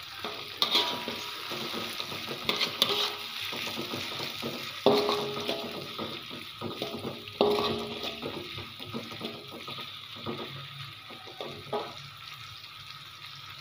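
Steel spatula stirring and scraping tomatoes and spring onion stalks around a wok of sizzling oil, with a steady sizzle under repeated scrapes and knocks of metal on the wok. Two sharper clanks ring briefly, about five and seven and a half seconds in.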